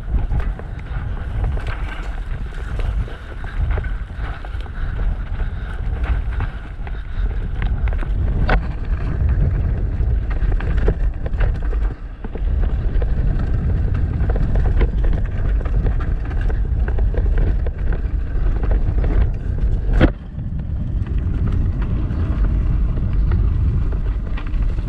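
Downhill mountain bike running fast down a street: heavy wind buffeting on the microphone over tyre rumble and frame rattle, with a sharp knock about eight seconds in and another about twenty seconds in.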